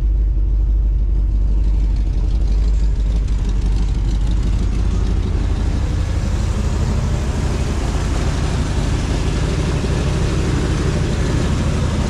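A car's engine running steadily, with a broad hiss that grows louder over the first five seconds or so and then holds.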